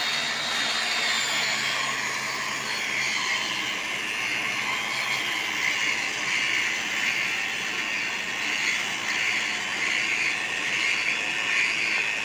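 Engine-driven portable rail grinder running steadily with its abrasive wheel on the rail head, grinding a welded rail joint flush. It makes a continuous grinding whine.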